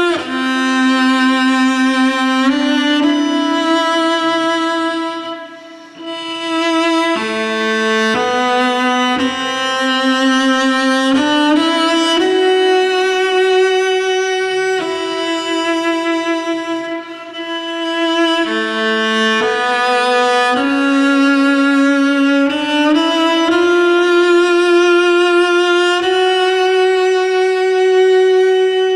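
Solo cello playing a slow melody of long held notes in its upper-middle range, recorded through a large-diaphragm condenser microphone. There is a brief break about six seconds in.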